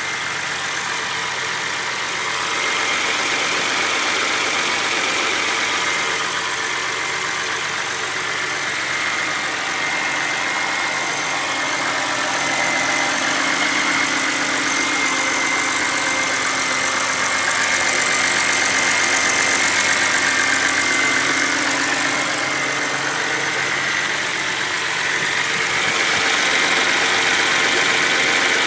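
Cold car engine idling with a rapid, even ticking from its hydraulic lash adjusters (hydraulic lifters), the typical lifter knock of a cold engine.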